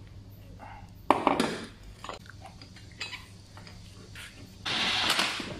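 Metal tools and parts being handled during a shock absorber replacement: a sharp clank about a second in, a few light knocks, then a short hissing burst near the end.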